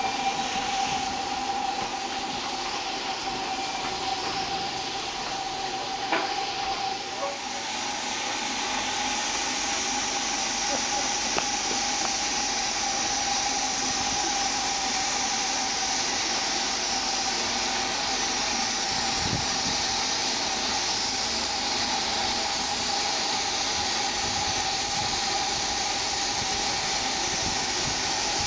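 LMS Royal Scot class steam locomotive 46100 hissing steam from its cylinders as it moves slowly, with open drain cocks blowing. It is a steady hiss with no exhaust beats, and a steady whistling tone runs under it for the first seven seconds or so.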